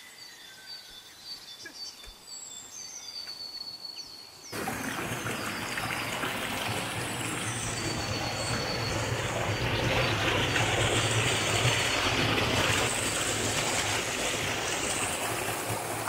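A few faint bird chirps, then about four and a half seconds in an abrupt switch to a rocky stream rushing and splashing over boulders, a steady, much louder rush of water.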